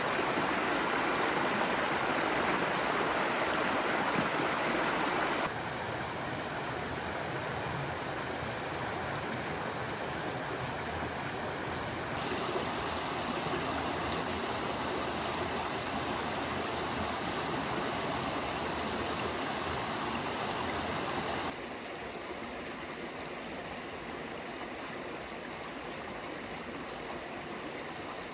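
Soda Creek, a small forest creek, babbling steadily over rocks. The rushing changes level abruptly at about 5, 12 and 21 seconds in, as different stretches of the creek are heard; it is loudest in the first few seconds and quieter near the end.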